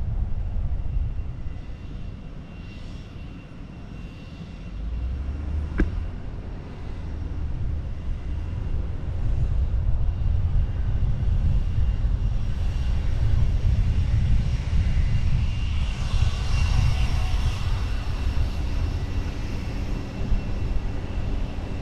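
Wind buffeting the microphone of a camera on a moving car, over the car's low road rumble; the rumble eases for a few seconds and then builds again. A single sharp tick about six seconds in.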